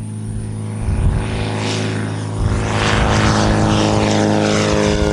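Zenith STOL CH 750 light aircraft flying low past, its piston engine and propeller running at a steady note that grows louder over the first few seconds as it comes closer.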